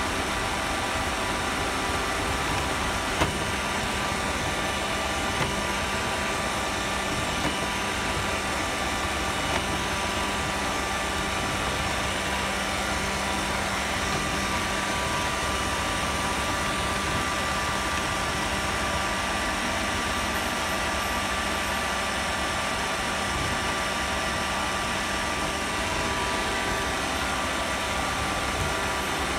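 Roomba robot vacuum running, heard through a phone riding on top of it: a steady motor drone with a few faint knocks in the first ten seconds.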